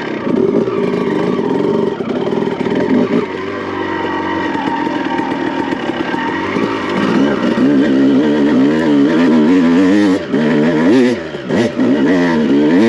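Honda CR250 single-cylinder two-stroke dirt bike engine running under way. Its revs are fairly steady at first, then rise and fall repeatedly and get louder in the second half as the throttle is worked.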